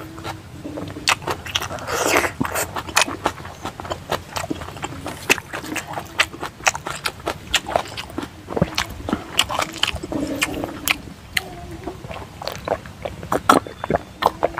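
Close-miked chewing and small wet mouth clicks from a man eating rice and pork curry by hand, an irregular run of quick crackles that goes on throughout.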